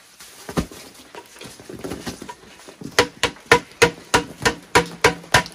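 Metal pail knocked repeatedly to empty the last of the wet cob mix out of it: about nine sharp, ringing knocks, roughly three a second, in the second half, after a single thud about half a second in.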